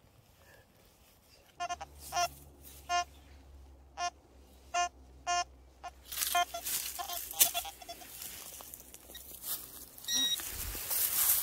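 Metal detector sounding a series of short, pitched beeps as its coil sweeps over a buried metal target, over a steady low hum. From about halfway through, rustling and scraping in the dry leaf litter take over as digging begins.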